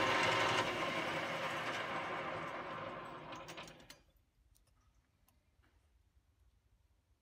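Metal lathe running, its tool turning a small step off the end of a crankshaft main journal to clear the timing-chain rivets. The machine sound fades over about four seconds and dies away, leaving a few faint ticks.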